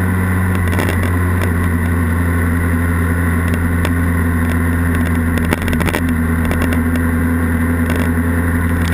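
Honda Rebel 250's parallel-twin engine running steadily while the motorcycle is ridden, its hum holding an even pitch, with a brief dip about five and a half seconds in; wind noise rushes over the handlebar-mounted camera.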